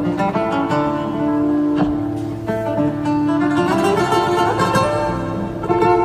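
Guitar music: a plucked melody over sustained notes.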